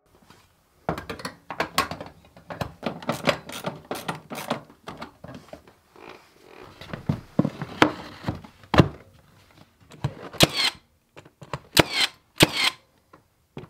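Irregular clicks, knocks and snaps of hand work as the baseboard heater's wiring compartment is closed up, with a few louder, sharper strikes near the end.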